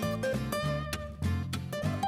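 Background music led by guitar, with a melody over regular strummed chords.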